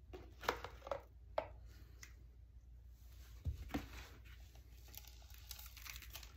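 A cordless stick vacuum's clear plastic dirt bin being handled and picked clear of a clog: a few quiet clicks and taps, mostly in the first two seconds and again about halfway, then a soft rustle of dirt poured out into a bucket near the end.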